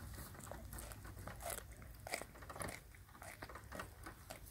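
Goat biting and chewing a whole raw carrot held in a hand: a run of irregular crisp crunches, the loudest about one and a half and two seconds in.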